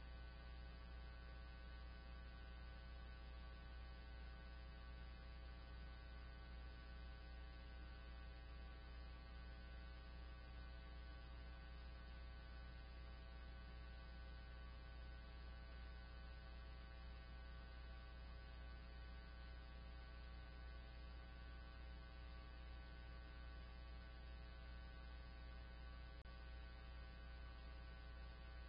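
Steady low electrical hum at a very low level, unchanging throughout, with no other sound over it.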